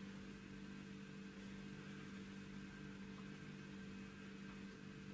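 Faint steady low hum with a light hiss: room tone.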